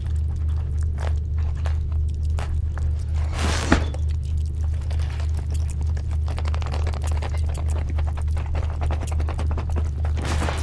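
Electronic soundtrack drone: a loud low hum that pulses evenly, with scattered clicks over it and a brief noisy swell with a sharp crack about three and a half seconds in.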